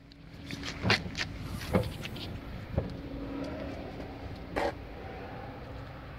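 A few knocks and clicks as the rear liftgate of a 2014 Jeep Compass is unlatched and raised, the loudest knock coming later, over a steady low hum.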